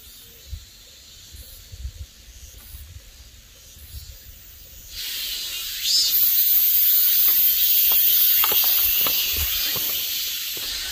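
Wind buffeting the microphone, then, coming in abruptly about five seconds in, a loud, steady, high-pitched shrill of summer insects in the forest, with a few footsteps on a dirt trail near the end.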